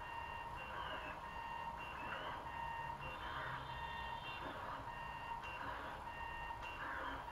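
Delta 3D printer's stepper motors whining as the tower carriages drive the print head around over the bed: a set of steady high tones with short rising and falling glides as the moves change speed.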